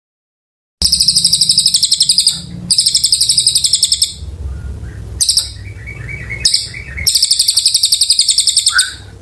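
A cililin, a small songbird, singing in long rapid trills of high, sharp notes, about ten a second, in bursts broken by short pauses. The song begins about a second in.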